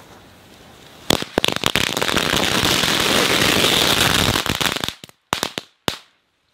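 Dozens of bijili firecrackers going off in a fast, dense crackle of bangs that starts about a second in and lasts about four seconds, followed by a few last separate pops before it stops abruptly.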